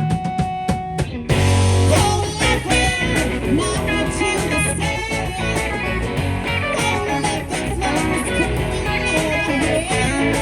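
Live rock band playing: drums, bass and electric guitars. About a second in, after a sparser bar of drum hits, the full band comes in loudly.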